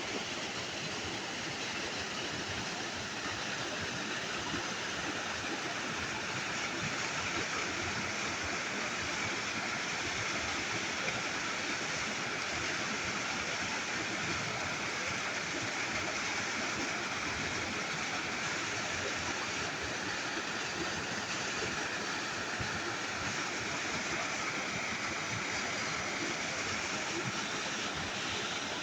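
Steady rush of flowing river water, an even hiss without a break.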